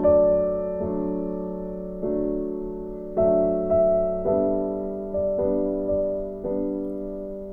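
Gentle background piano music: slow, sustained chords with a new chord or note about every second, each fading away.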